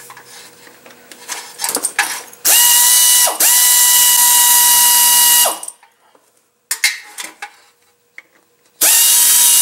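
Air ratchet spinning out the bolts that hold the valve body of a Mercedes 722.6 five-speed automatic transmission. It gives a steady whine for about three seconds with a brief break, then some light clicks of the tool and bolts, then runs again near the end.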